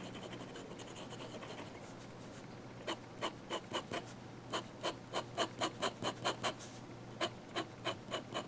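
Steel nib of an Amazon Basics fountain pen scratching across sketchbook paper, a nib its user calls a bit scratchy. Low continuous scribbling at first, then from about three seconds in a run of quick, sharper hatching strokes, about three or four a second with short pauses.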